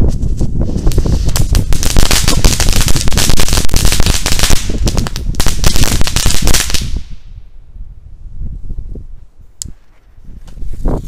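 Small category 1 ground firework burning, giving off a rapid, dense crackle that dies away about seven seconds in.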